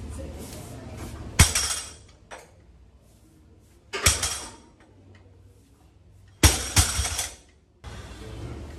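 Plate-loaded deadlift barbell set down on the gym floor three times, each touchdown a sharp clank of the plates with a brief metallic rattle; the third one knocks twice in quick succession.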